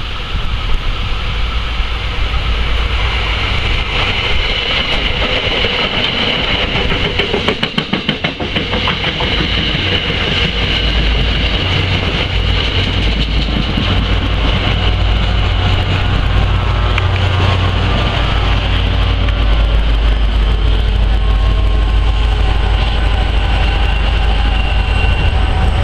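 Commuter train pulling into a station behind Metro-North diesel locomotive 4902: a steady low rumble with a high whine, and wheels clicking over rail joints about eight seconds in. The diesel engine's rumble grows louder near the end as the locomotive draws level.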